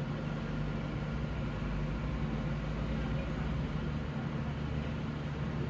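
Suzuki Cultus engine idling with a steady low hum. The idle sits high, around 1400–1500 rpm where it should be about 700, and hunts up and down: the car's idle fault.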